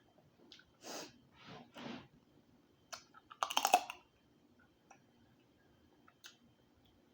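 Close-miked eating sounds: scattered wet mouth clicks and three short breathy sounds, then a dense burst of crackling clicks about three and a half seconds in, the loudest moment.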